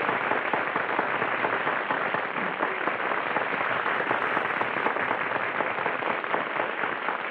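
Studio audience applauding steadily, a dense patter of many hands clapping, heard on a narrow-band 1940s radio broadcast recording.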